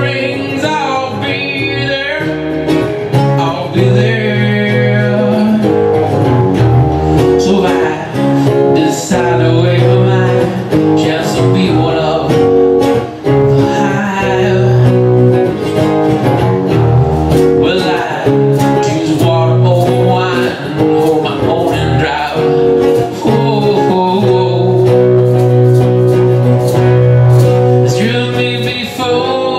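Acoustic band playing a song: acoustic guitars strummed and picked under a male lead vocal.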